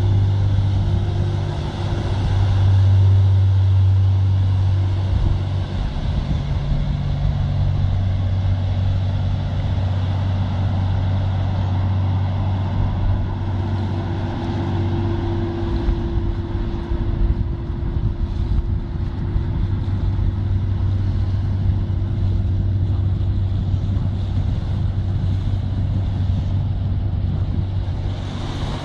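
Pilot boat's engines droning steadily as it runs past at speed, with a rushing noise underneath. The drone weakens after about halfway as the boat moves away.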